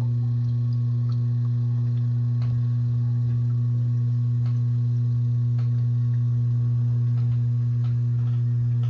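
Steady low electrical hum from the glow tank's running equipment, with faint scattered ticks.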